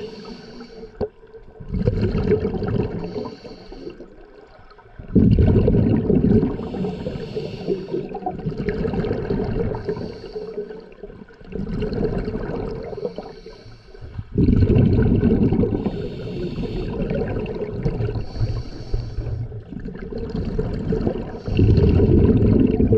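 Scuba diver breathing through a regulator, heard underwater: a hissing inhale alternates with a loud burst of exhaled bubbles, over several slow breaths.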